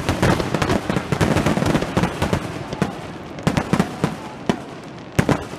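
Aerial fireworks: a dense, fast crackle of many small bursts, with a sharp bang at the start and another about five seconds in.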